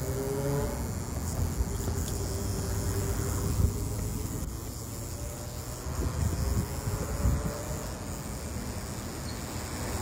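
Steady high-pitched insect chorus, with uneven low rumbles of wind on the microphone.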